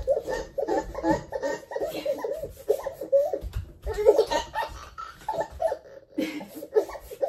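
Baby laughing hard in a long run of short, repeated giggles.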